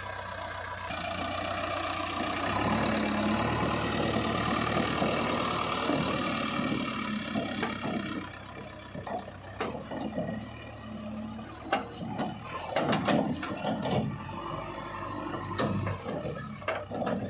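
JCB 3DX backhoe loader's diesel engine running steadily under load, growing louder over the first few seconds. After about 8 seconds the engine drops lower, and repeated knocks and clanks from the backhoe arm and bucket working the soil come through.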